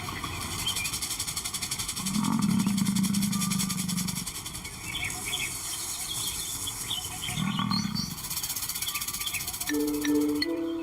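A lion gives two low, drawn-out calls, the first about two seconds long starting two seconds in, the second shorter near eight seconds, over a steady high-pitched buzz.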